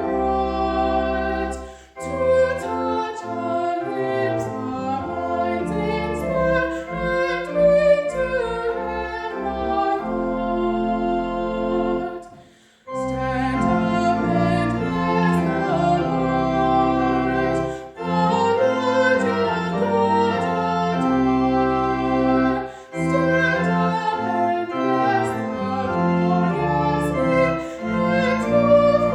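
Classical-style sacred music: singing with instrumental accompaniment, in sustained phrases separated by short breaks, the longest break near the middle.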